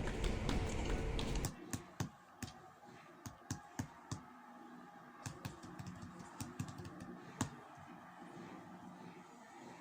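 A loud steady noise stops abruptly about a second and a half in, then a run of irregular sharp clicks, close together at first and sparser near the end, like typing on a keyboard.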